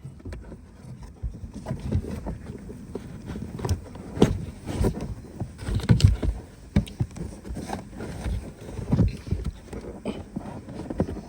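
A new cabin air filter being pushed by hand into its plastic housing: irregular rubbing, scraping and light knocks of the filter frame against the plastic.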